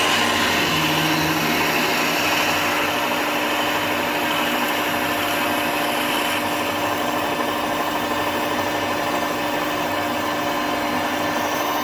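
Metalworking machine tool running steadily, an electric motor hum with steady tones under a broad hiss. The upper hiss eases a little about halfway through.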